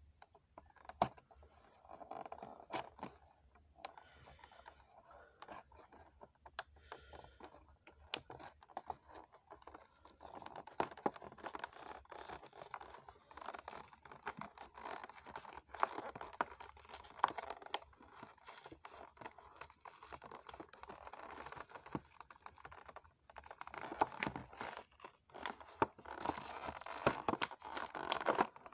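Cardboard and clear plastic packaging of a Matchbox toy-truck five-pack being handled and worked open: irregular scratching, tearing and crinkling with small clicks, sparse at first and dense and continuous from about eight seconds in.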